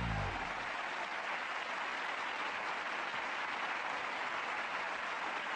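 A studio audience applauding with steady clapping. The last low note of the theme music dies away in the first half-second.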